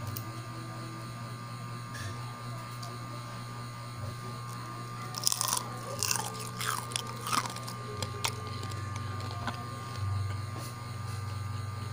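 Crisp crunching of fried crablets: a cluster of sharp crackles for about two seconds, starting about five seconds in, then a couple of single cracks. A steady low hum runs underneath.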